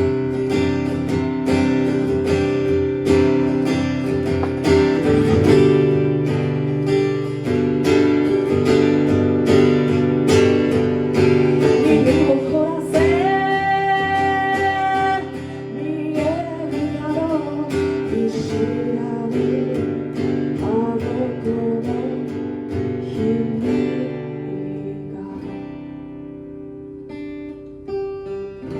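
Acoustic guitar strummed steadily through an instrumental passage of a song, thinning to softer, sparser notes in the last few seconds.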